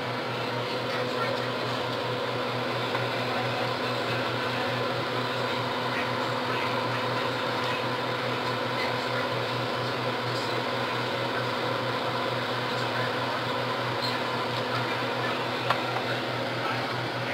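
Steady electric motor hum: a low drone with fainter, higher steady tones over a hiss, and one sharp click near the end.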